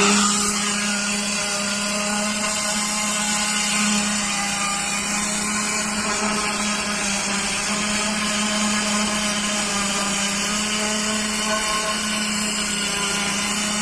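7.5 HP three-phase high-pressure washer running steadily under load, a constant motor-and-pump hum over the hiss of the water jet.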